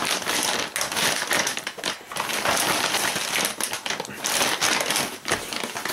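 Paper wrapping on a mailed parcel crinkling and rustling as the parcel is handled and turned over, a dense run of crackles.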